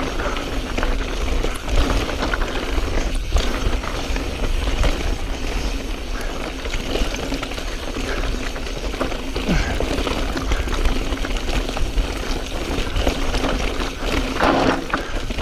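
Mountain bike, a 2016 Specialized Stumpjumper S-Works 27.5, rolling fast down loose rocky singletrack: tyres crunching over loose rock and the bike clattering and rattling steadily, with wind rumbling on the action camera's microphone.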